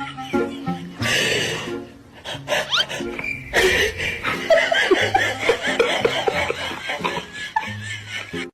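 People laughing over background music, the laughter heaviest from about three and a half seconds in to near the end.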